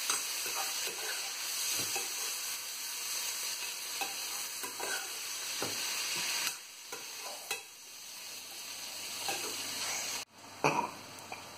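Chana dal and tempering sizzling in a small frying pan while a perforated metal spoon stirs it, with scattered scrapes and taps of the spoon against the pan. The sizzle drops to a fainter hiss about two thirds of the way through.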